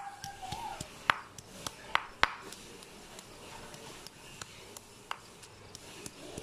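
Stone pestle pounding chopped onion and green chillies in a granite mortar: sharp, irregular knocks of stone on stone through the soft ingredients. The three loudest strikes come in the first two and a half seconds, then lighter, quicker taps follow.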